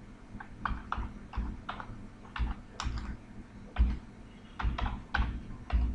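Computer keyboard being typed on: about fifteen quick, unevenly spaced keystrokes as a terminal command is entered.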